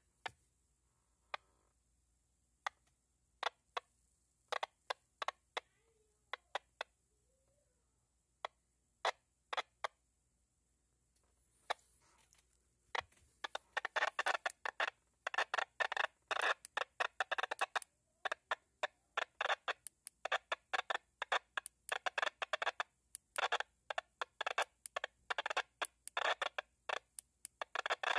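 Baofeng handheld radio's squelch breaking open again and again on the noise floor with no signal present, giving short bursts of static. The bursts are sparse at first and come thick and fast from about halfway in. Even a high squelch setting fails to keep the noise out.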